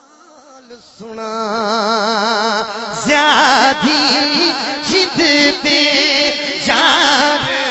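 A male voice singing a Punjabi devotional naat, holding a long, wavering note that starts about a second in. Sharp rhythmic percussion strokes join about three seconds in, and the music grows louder.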